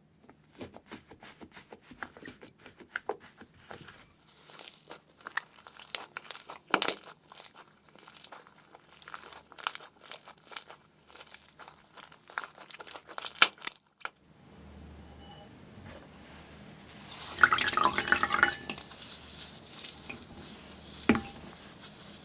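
Slime being squeezed and worked by hand, making many short sticky pops and clicks. It stops about two-thirds of the way in, then comes back as a denser, louder crackling stretch.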